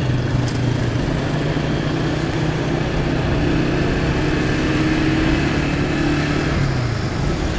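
Motorcycle engine running while riding, with steady wind and road noise from the helmet-mounted phone. The engine note strengthens a little in the middle and eases off near the end.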